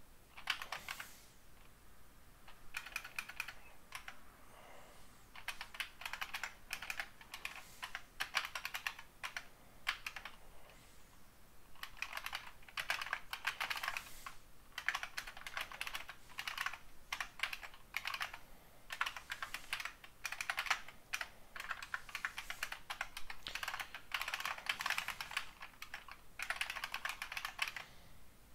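Typing on a computer keyboard: runs of rapid key clicks in bursts, with short pauses between them.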